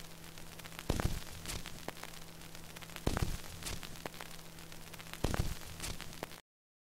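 Stylus riding a vinyl record: steady surface hiss and crackle with a faint hum, and a heavy low thump about every two seconds. It cuts off suddenly near the end.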